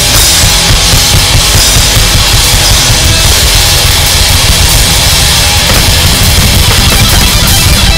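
Live hard rock band playing loud and distorted, with a pounding drum kit and heavy guitars, recorded close to the stage so the sound is saturated.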